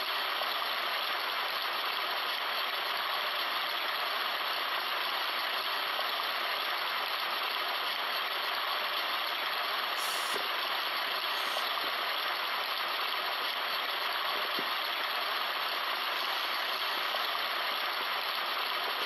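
Portable sound machine giving out a steady, even rushing noise.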